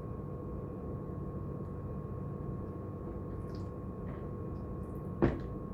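Steady machine hum with a faint constant whine, a few small clicks, and one sharp knock about five seconds in.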